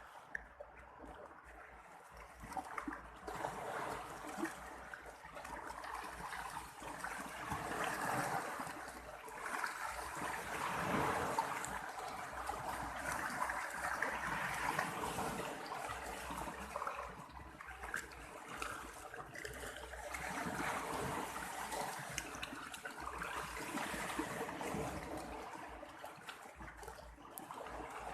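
Moving water washing and trickling, swelling and fading every few seconds.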